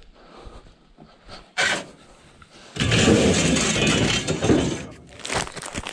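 A 25 kg paper sack of Portland cement handled on a truck's flatbed: a single knock, then about two seconds of loud scraping rustle as the sack is dragged, with a few clicks near the end.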